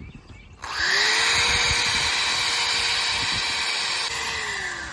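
Power tool fitted with a wire wheel spinning up about half a second in and scrubbing old paint off cast iron: a steady whine over a scratchy noise, winding down in pitch near the end.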